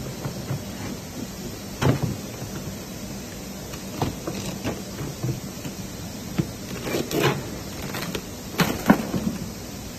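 A knife slitting open a white plastic-wrapped test tube, with scratchy cutting and crackling, rustling sheeting; sharp crackles and knocks come about 2 s in, again at about 4 s, and in a cluster between about 7 and 9 s.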